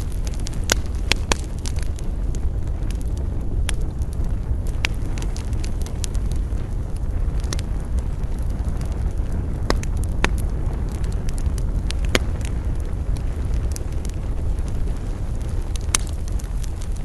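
Wood campfire crackling, with sharp pops at irregular intervals over a steady low rumble.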